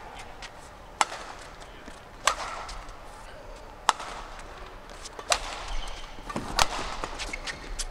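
Badminton rally: rackets striking the shuttlecock six times, a sharp crack roughly every second and a half as the two players trade shots, with a low hall murmur between them.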